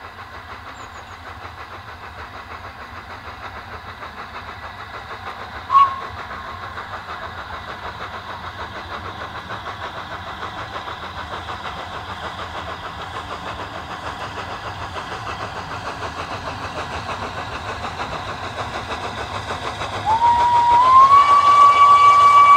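Three-cylinder Gresley A3 steam locomotive Flying Scotsman working its train, its fast, even exhaust beats growing steadily louder as it approaches. A brief whistle blip comes about six seconds in. About twenty seconds in a long whistle starts, the loudest sound, stepping up slightly in pitch as it opens.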